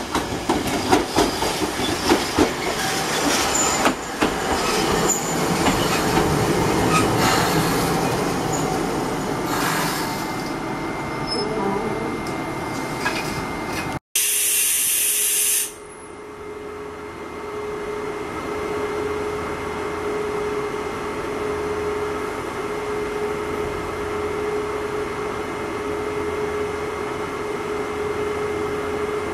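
A Randen tram pulling into the station, its wheels clicking and squealing over the rails. It then stands at the platform: after a short burst of hiss about halfway through, a steady electrical hum holds on one tone.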